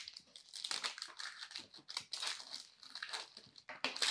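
Parchment paper crinkling and chilled, crisp chocolate-coated pork-rind clusters crackling as they are broken apart by hand and spoon on a metal baking sheet: a dense run of irregular crackles.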